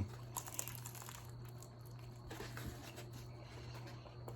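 Faint crinkling and crunching from crispy fried egg rolls being handled and eaten, with a cluster of small crackles in the first second and softer rustles after.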